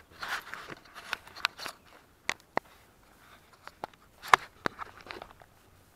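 Footsteps on dry leaves and grass: an irregular run of crunches and sharp crackles, the loudest about four seconds in.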